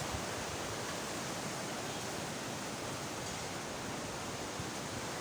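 Fast-flowing mountain river rushing: a steady, even roar of white water.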